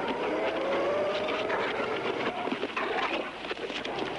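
Truck engine running, its pitch rising slowly as it pulls away, with short sharp knocks over it.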